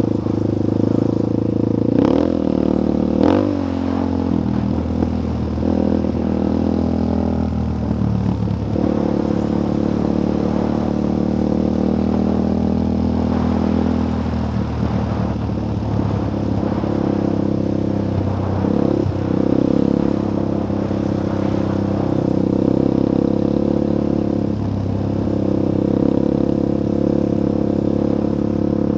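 Dirt bike engine running under way on a dirt trail, its pitch rising and easing with the throttle, with two sharp knocks about two and three seconds in.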